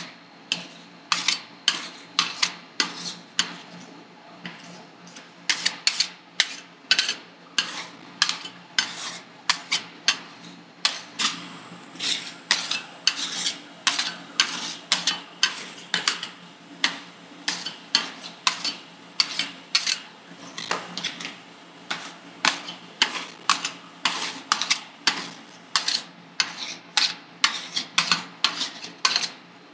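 Metal spatulas chopping and tapping on a steel ice cream cold plate, working the base into rolled ice cream: quick sharp metallic strikes about two to three a second, with a stretch of scraping about halfway through.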